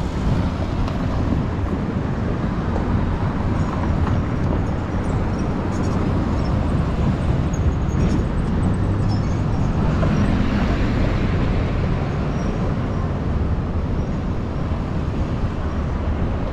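Downtown street ambience: a steady rumble of traffic, swelling as a vehicle passes about ten seconds in.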